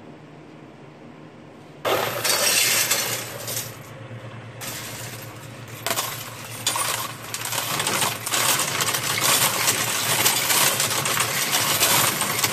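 Brandt 695 coin sorter and counter running: a steady motor hum, then from about two seconds in a loud, dense clatter and jingle of mixed coins being sorted through the machine. The clatter eases briefly around four to six seconds in, then builds again.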